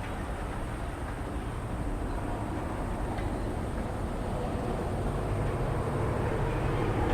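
Distant Boeing 777-200ER airliner on approach: a steady low jet rumble that slowly grows louder.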